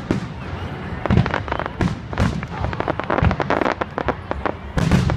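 Aerial fireworks shells bursting overhead: a dense run of sharp crackling pops, with several deeper booms among them about a second apart.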